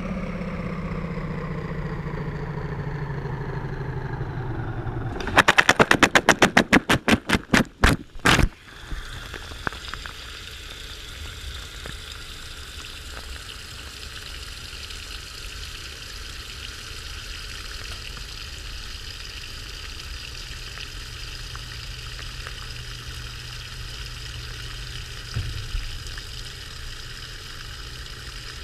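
Washing machine heard from inside its drum, through a camera's waterproof housing. The motor whine falls in pitch as the drum slows, then a rapid run of loud knocks slows and stops over about three seconds, giving way to a steady hiss and faint hum, with one more knock near the end.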